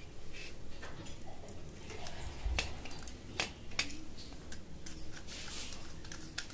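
Screwdriver tightening a terminal screw on a 32 A miniature circuit breaker, with small clicks and scrapes of metal on plastic as the wire is handled. The sharpest clicks come between about two and four seconds in.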